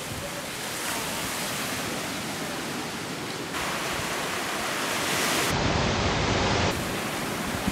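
Ocean surf: waves washing and breaking as a steady rush of water that grows louder. The sound changes abruptly about three and a half seconds in and again around six seconds.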